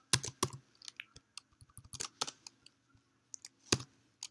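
Computer keyboard keys pressed in short, irregular clusters of clicks, as editor commands are typed.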